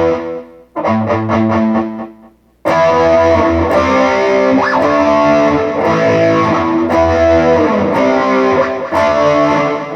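Electric guitar played through a Positive Grid Reactor 50 1x12 combo amp on an AI-generated preset tone. A couple of separate chords ring out, then continuous playing from about three seconds in, with a string bend near the middle.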